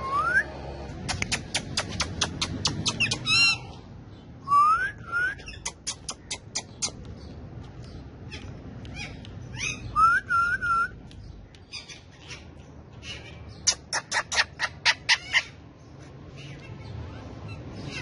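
Indian ringneck parakeets calling: three quick runs of sharp, repeated squawks, about five a second, mixed with short rising whistles.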